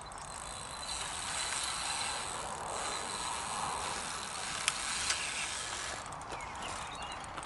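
Fixed-spool fishing reel ratcheting with a steady whirr while a hooked fish is played on a hard-bent rod. The whirr starts about a second in and runs for around five seconds, with a couple of sharp clicks near its end.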